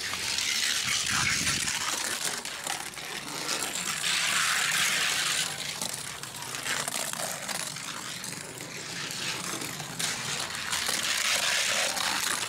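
Hot Wheels Jack Hammer die-cast car, weighted to 40 g, rolling down a gravity race track: its small wheels make a steady rattling hiss on the track surface. The noise is louder in the first five seconds, eases off in the middle, and swells again about ten seconds in.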